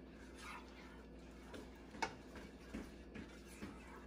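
Spoon stirring ground egusi in a pot, scraping and knocking against the pot in a few irregular clicks and scrapes, the sharpest about two seconds in.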